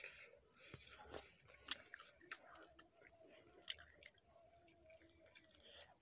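Quiet chewing with soft wet mouth clicks and smacks of someone eating rice and smoked chicken by hand, with several short sharp clicks spread through it.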